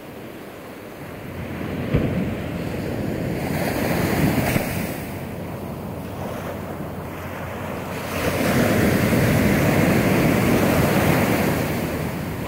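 Ocean surf breaking and washing up a sandy beach, swelling about four seconds in and again, louder, from about eight seconds.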